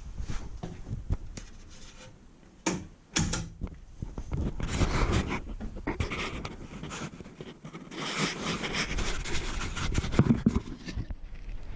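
Hands-on work on a door: irregular knocks and clicks, with two longer stretches of rasping scraping noise.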